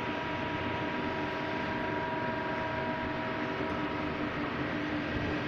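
Steady machine hum and whir with several constant tones, typical of a running CNC machine.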